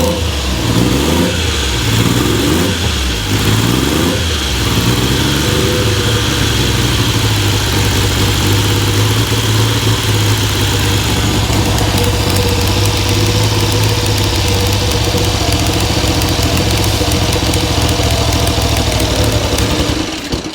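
1969 Triumph Trident's 740 cc three-cylinder engine being blipped several times, then running steadily until it is shut off suddenly at the end. It is running very rich at low revs, for no reason the mechanic can see yet.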